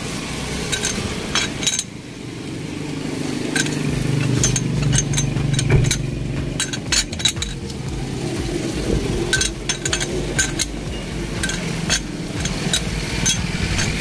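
Metal clinks and ticks of a lug wrench and lug nuts being worked onto a car's alloy wheel hub, in short irregular taps. A low rumble swells underneath a few seconds in and fades again.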